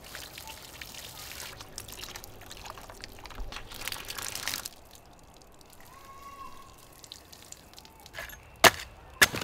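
Water running from an outdoor spigot, splashing over dishes being rinsed and onto the ground, until it cuts off a little under five seconds in. Near the end come two sharp knocks, the loudest sounds.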